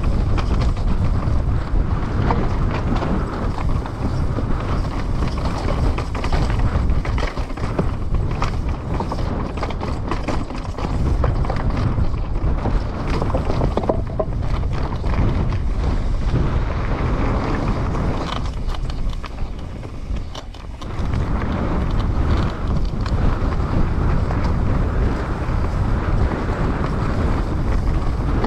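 Trek Slash 9.9 enduro mountain bike descending a trail at speed: wind rushing over the microphone and tyres rolling on dirt, with frequent clatter from the bike over bumps. There is a brief lull about two-thirds of the way through.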